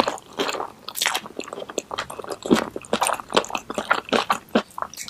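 Close-miked eating of boneless chicken feet in chilli sauce: biting and chewing, with many quick irregular wet clicks and smacks.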